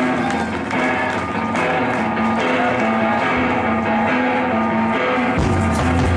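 Live punk band starting a song: an electric guitar, a Fender Stratocaster, plays a repeating figure alone. About five seconds in, bass and drums come in hard with cymbals.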